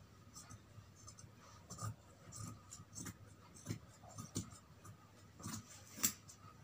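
Large tailoring scissors snipping through cloth, trimming the excess beyond a stitched seam: a run of irregular crisp snips, the loudest about six seconds in.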